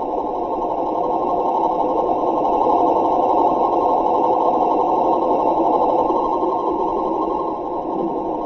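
Radio signal known as the "Snoring Sasquatch", heard as a receiver's audio: a steady, rough, hissing drone with its energy in a narrow low-mid band, swelling slightly about three seconds in and easing off briefly near the end.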